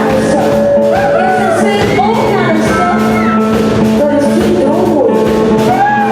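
Blues-rock band playing a boogie live, with guitar and many bent, sliding notes over a steady groove.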